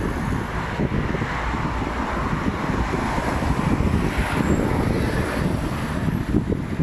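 Road traffic running past on a busy city road, a steady rumble and hiss with wind buffeting the phone's microphone.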